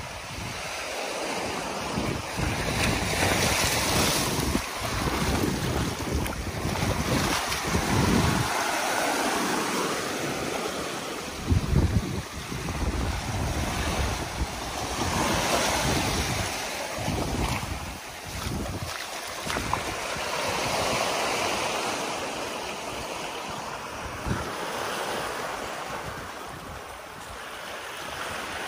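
Small waves washing in and breaking over reef rock and sand at the water's edge, swelling and fading every few seconds, with wind gusting on the microphone as low rumbles. The loudest moment is a short gust about twelve seconds in.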